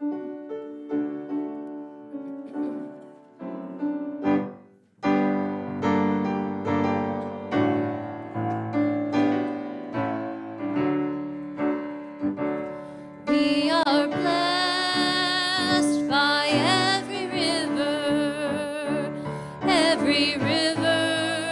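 Piano introduction to a hymn, then about thirteen seconds in a woman's voice with a wavering tone begins singing over the piano, the congregation singing with her.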